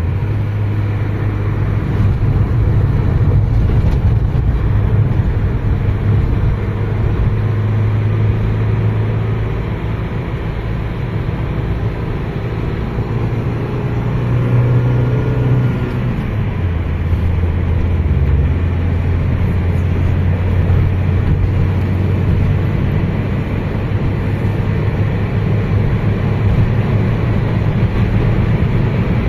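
Engine and road noise heard inside a moving car's cabin: a steady low drone that drops slightly in pitch a little past halfway.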